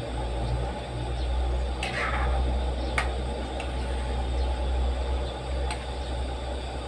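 A metal spatula stirring a pan of coconut-milk soup, scraping and clicking against the pan a few times, over a steady low rumble.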